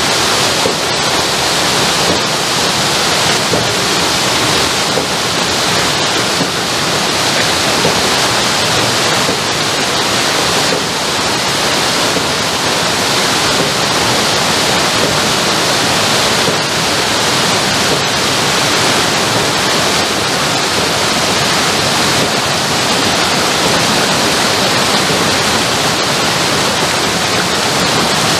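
Water rushing steadily down a rocky overflow channel from the mill race's sluice gate, as the race's water is let out past the water wheel to stop it.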